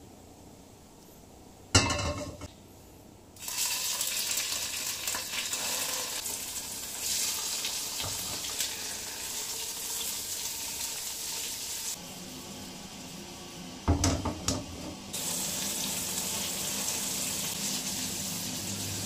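Tofu cubes frying in hot oil in a wok, a steady sizzle that starts about three and a half seconds in, shortly after a sharp knock. A few more knocks of the pan or utensil come about fourteen seconds in.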